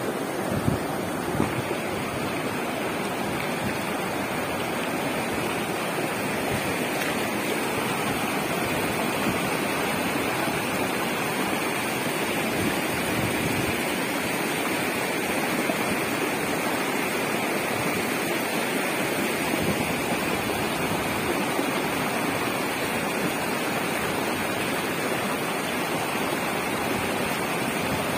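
Muddy flash-flood water surging down a wide gravel riverbed: a steady, loud rushing of churning water.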